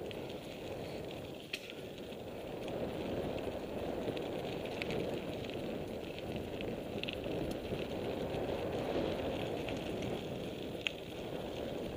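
Mountain bike rolling along a gravel singletrack: a steady tyre rumble with a couple of sharp clicks and rattles from the bike.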